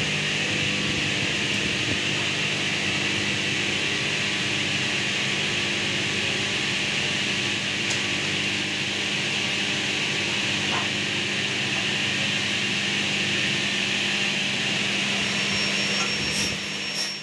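A fan running steadily, an even whoosh with a low hum underneath, fading out at the very end.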